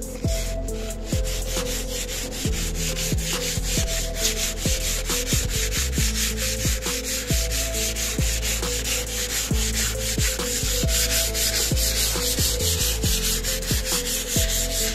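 Wood veneer door panel being hand-sanded with 320-grit waterproof sandpaper: rapid, steady back-and-forth rubbing strokes along the grain. This is the first, light sanding pass that prepares the veneer for polish.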